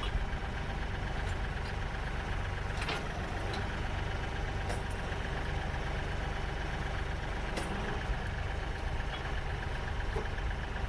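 Kioti compact tractor's diesel engine idling steadily, with a few light clicks over it.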